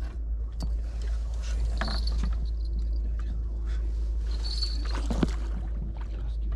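Water splashing and sloshing as a hooked carp thrashes at the surface close in, in two main bursts, over a steady low rumble.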